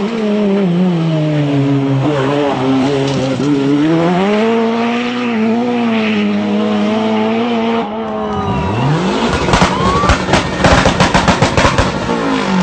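Rally car engine at high revs, its pitch dropping and climbing with throttle and gear changes. About eight seconds in, a car's engine climbs sharply in pitch under acceleration, joined by a rapid run of sharp cracks.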